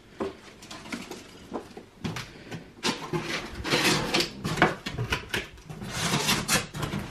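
Cardboard box flaps and cardboard packaging inserts being pulled open and handled: a run of scrapes, rustles and knocks, sparse at first and busy from about two seconds in.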